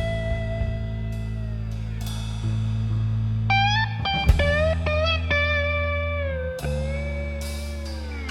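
Background music: a blues-style guitar plays sliding, bending notes over held low bass notes.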